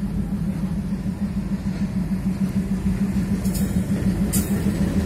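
WDM-3D diesel-electric locomotive's 16-cylinder ALCO 251 engine running with a steady, throbbing low drone as it creeps closer, growing a little louder. Two short, sharp high-pitched noises come near the end.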